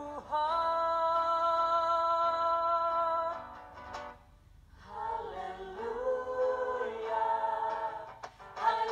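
A vocal trio, two women and a young man, singing in close harmony: a chord held for about three seconds, a short break, then the voices moving again.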